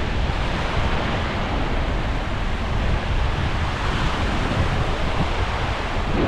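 Sea surf and wind: a steady rushing noise with a deep rumble from wind buffeting the microphone.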